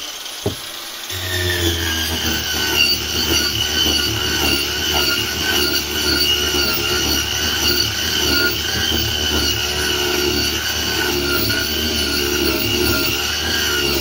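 Angle grinder running and grinding into a linden-wood slab: a steady, high-pitched whine with grinding noise as the disc cuts. Its sound dips briefly in the first second, then holds steady.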